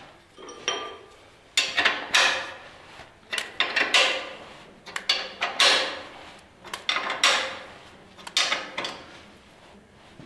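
Hand wrench turning a nut on a trailer turntable-ring bolt in about six repeated working strokes, each a short metallic scrape and click, at uneven intervals. The nut is being worked onto a bolt whose thread is stiff or worn.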